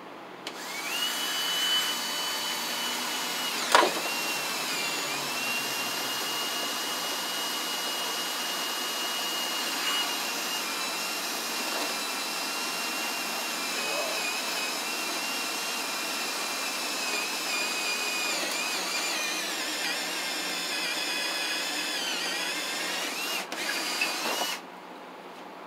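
DeWalt cordless drill with a spade bit boring a hole through vinyl siding into the wall. It runs steadily for about 24 seconds with a high whine, then stops. A single sharp snap comes about four seconds in.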